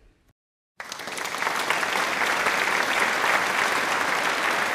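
Applause, many hands clapping in a dense steady patter. It comes in suddenly about a second in, after a moment of dead silence, and swells briefly to full level.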